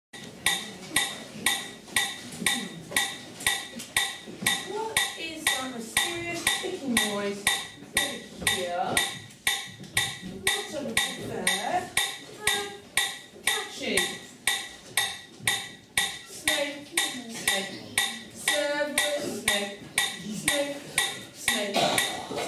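A steady, sharp ticking, about two ticks a second, with muffled voices underneath.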